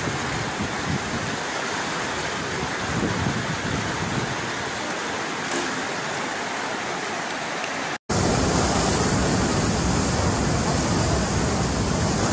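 Floodwater rushing fast down a narrow lane, a steady noise of churning water. About eight seconds in it cuts out for an instant and gives way to the louder, steady rush of a river in flood.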